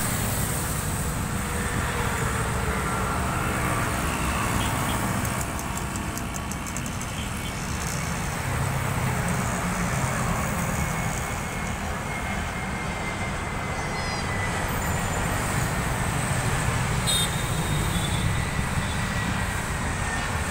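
Steady road traffic noise with a low rumble. Across the middle, a faint whine slowly falls in pitch.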